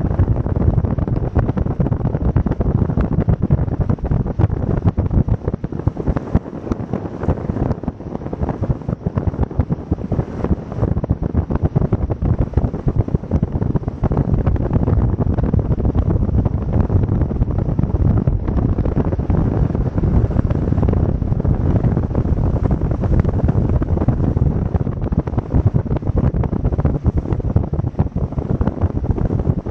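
Wind buffeting the microphone aboard a moving motorboat: a loud, steady rush that rises and falls in gusts, with the boat's running noise beneath.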